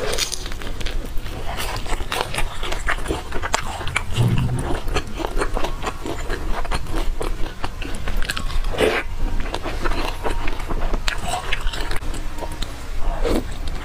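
Close-miked biting and chewing of youtiao, Chinese fried dough sticks: a steady run of short mouth clicks and smacks.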